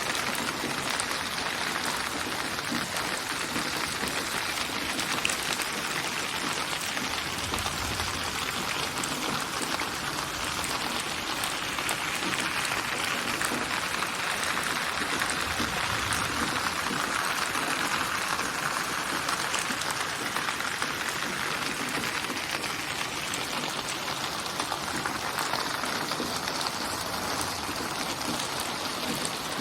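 Steady, dense rainfall: an even patter of raindrops on surfaces, swelling and easing slowly.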